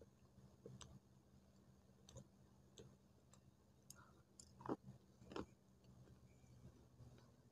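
Close-miked biting and crunching of a dry clay stick: scattered sharp crisp cracks, the two loudest about five seconds in.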